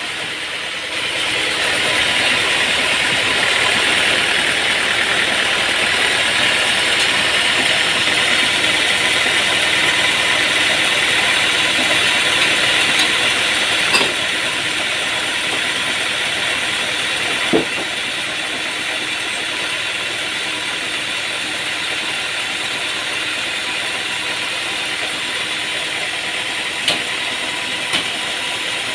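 Sawmill machinery running steadily, a motor's drone with a hiss over it, marked by a few sharp knocks about halfway through and near the end.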